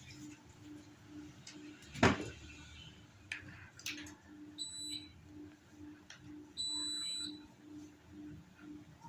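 Panasonic CS-ZN5WKP mini-split indoor unit beeping, a short beep and then a longer one, after a loud sharp click about two seconds in. A low, even pulsing runs underneath about three times a second.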